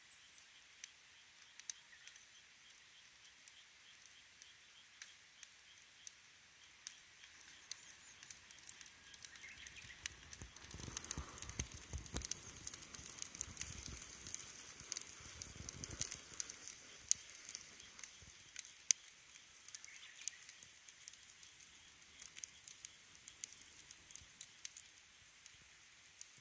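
Wood campfire crackling, with sharp pops and snaps that come thicker and louder after the first few seconds, and a low rushing swell in the middle. A thin, steady high tone sets in about two-thirds of the way through.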